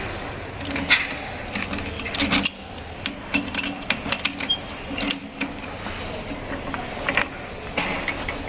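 Metal clicks, clinks and rattling from handling metal parts and tools at a metal lathe, with a low hum that comes and goes.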